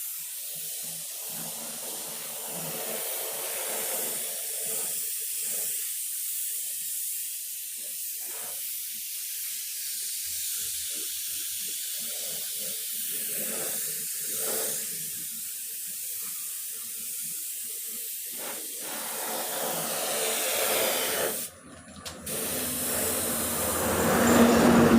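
Paint spray gun spraying paint onto a motorcycle fuel tank, a steady hiss of air and atomised paint. It cuts out for under a second a few seconds before the end, then resumes louder.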